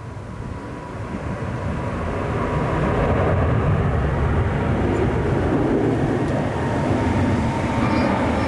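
Jet noise of a twin-engine Boeing 787 airliner passing low overhead with its landing gear down. It builds over the first few seconds, then holds loud and steady.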